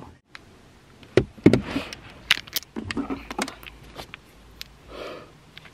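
Handling noise from a phone being held and moved about inside a car: scattered clicks and taps, a dull knock about a second and a half in, and a short rustle near the end.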